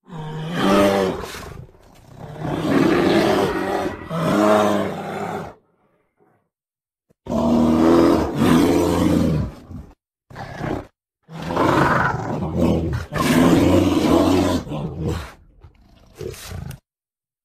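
A bear calling in a string of about seven deep, rough calls, each one to three seconds long, with abrupt gaps of silence between them.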